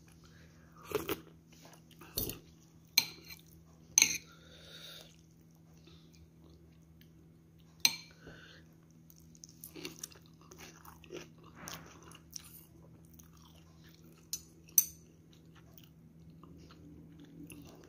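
A person eating noodle soup close to the microphone: chewing, with a handful of sharp clinks of a metal spoon and chopsticks against the bowl.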